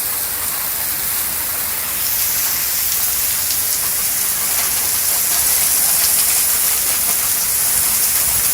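Rain pouring steadily in a thunderstorm, an even hiss that grows louder about two seconds in.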